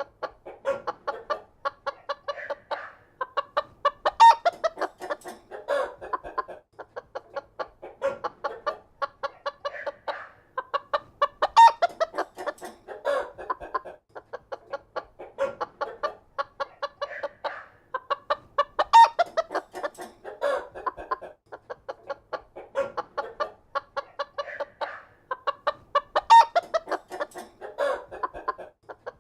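A flock of chickens clucking in a barn, many short overlapping clucks and calls from several birds at once. The same stretch of a few seconds repeats about every seven seconds, as a looped recording.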